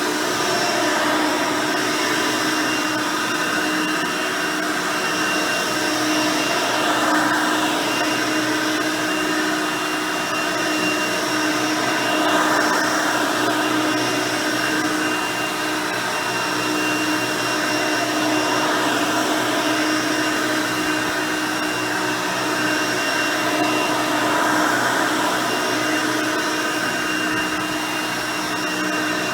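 Hoover Elite 350 upright vacuum, fitted with a 5-amp motor and its original 9-blade fan, running steadily while vacuuming. It gives a constant motor whine with a few fixed tones, and its loudness rises and falls a little as it is worked back and forth.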